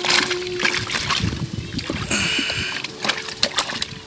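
Water splashing and sloshing in a bucket crowded with live tilapia as a hand moves among the thrashing fish, in quick irregular splashes.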